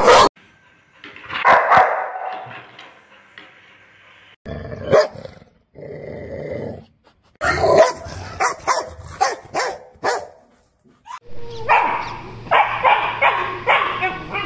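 Dogs barking and growling in short, separate bursts that change abruptly several times; the last few seconds run over a steady low hum.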